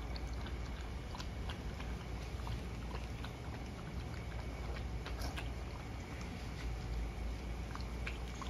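An American bulldog puppy and a Rottweiler puppy eating from plastic bowls: scattered small crunches and clicks over a steady low background rumble.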